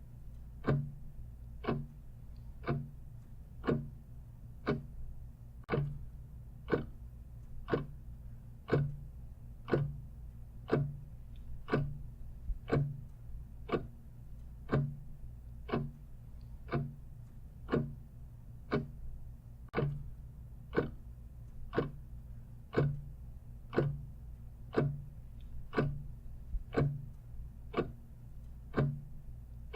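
Clock ticking steadily in an even tick-tock rhythm, about two ticks a second, with a low steady hum underneath.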